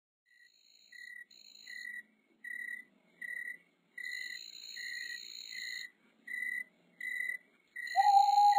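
Crickets chirping: short, high chirps repeating roughly every three quarters of a second, with one longer unbroken trill in the middle. Near the end a louder, lower steady tone comes in over them.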